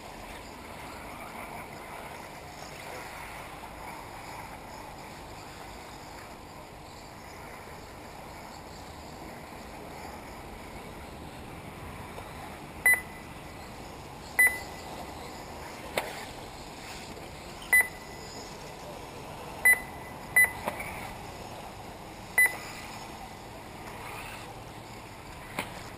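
Short, sharp electronic beeps, seven of them at uneven intervals from about halfway through, over a steady background hiss. These are typical of an RC race lap-counting system, beeping as each buggy crosses the timing line.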